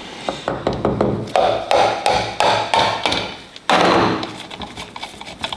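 A run of light metal taps and knocks as the vane-type oil pump of a BMW S85 V10 is taken apart, with one louder knock about four seconds in.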